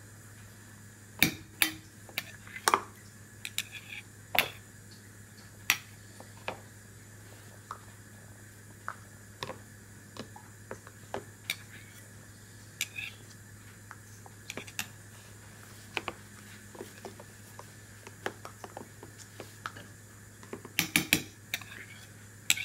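Clear plastic cups clacking against each other and a plastic high-chair tray as a toddler handles them: irregular sharp knocks, with a quick run of them near the end.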